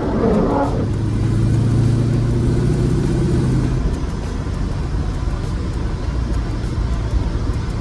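Rover SD1 Vitesse's V8 engine revving quickly up in the first second, then running at a steady low pitch until about four seconds in, when it fades into a steady driving rumble.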